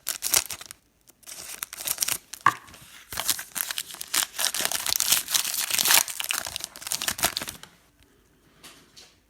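Trading-card pack wrappers crinkling and tearing as packs are opened and the cards handled, in rustling bursts that stop about three-quarters of the way through.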